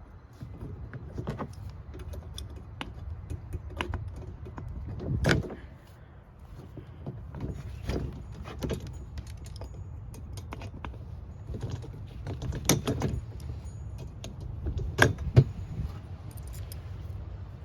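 Scattered metallic clinks, rattles and knocks of hand work on a garden cart's wheels and their small metal parts, with a few louder knocks about 5, 13 and 15 seconds in.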